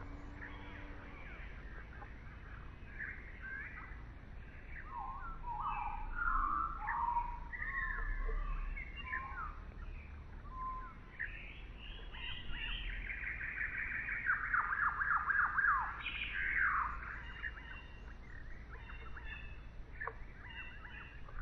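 Several songbirds singing and chirping, with overlapping short calls and a fast trill of rapidly repeated notes about two-thirds of the way through.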